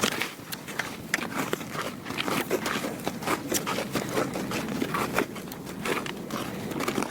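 Irregular scuffing and crunching steps on dirt from a horse's hooves and the handler's feet moving about during groundwork, with no steady rhythm.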